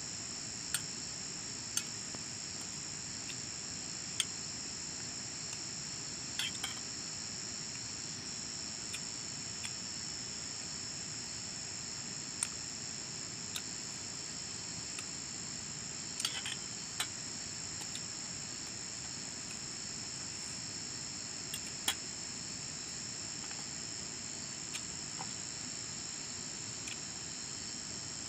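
Insects chirring steadily in a high, continuous drone, with scattered light clicks of a spoon on a plate.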